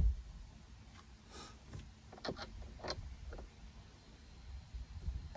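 A knock right at the start, then a few light clicks and taps of plastic dashboard trim and small parts being handled behind the removed glovebox.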